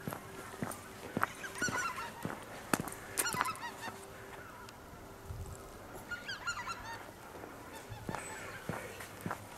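A flock of wild geese flying over, calling in short repeated honks that come in several bursts, with the walker's footsteps on the path beneath.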